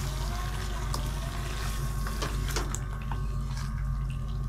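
A wooden spoon stirring thick, creamy chicken curry gravy in a metal karahi, with a few sharp clicks of the spoon against the pan, over a steady low hum.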